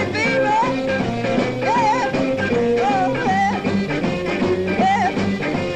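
Beat group playing live rhythm and blues: a saxophone plays a line of sliding, bending notes over electric guitar, bass and a steady beat.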